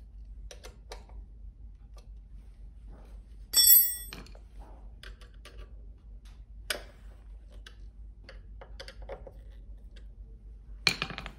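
Small clicks and scrapes of screws and a hand screwdriver working on the metal deck of a Razor electric scooter as the deck screws are driven in, with one loud ringing metallic clink about three and a half seconds in and a short rustling clatter near the end.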